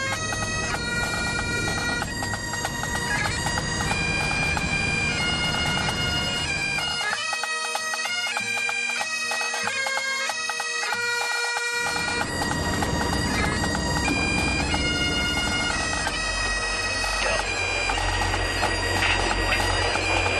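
Bagpipes playing a tune: a steady drone under a melody that steps from note to note.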